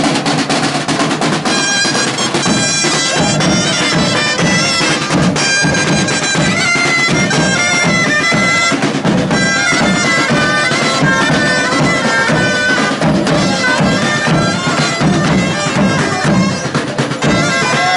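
Folk street band: reed pipes with a nasal, bagpipe-like tone play a melody over a steady beat on side drums. The drums start first and the pipes come in about a second and a half in.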